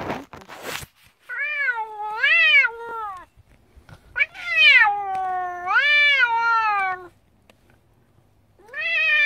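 Blue Scottish Fold cat giving three long, drawn-out meows, each wavering up and down in pitch, the second the longest and the third still going at the end. The owner hears it as the cat complaining to her.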